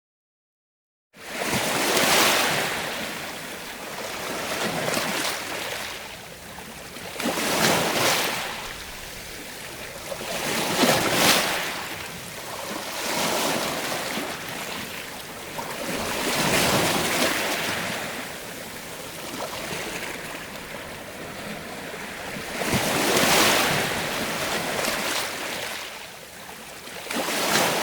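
Sea waves washing in, a rushing surge that swells and ebbs every few seconds after a moment of silence at the start.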